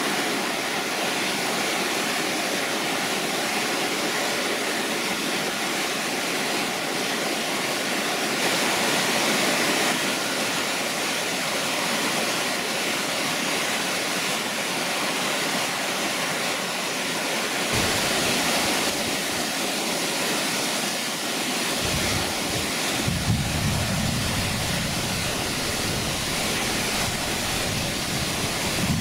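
Steady rushing of a cascading mountain creek and waterfall, water pouring over rocks. About two-thirds of the way in, a deeper rumble joins the rush.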